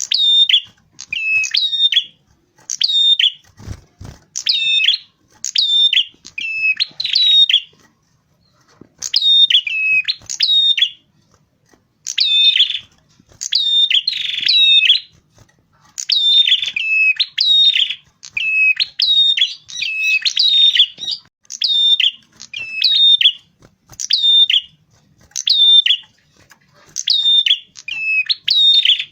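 Red-headed prenjak (a prinia) giving its loud, high song, sung as a lure call. Each short phrase is a quick run of sharp, up-and-down chirps, repeated about once a second with brief pauses.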